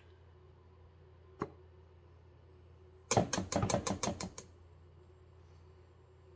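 Metal measuring spoon clinking against a stainless steel saucepan: a single tap, then a quick run of about ten sharp clinks over a little more than a second.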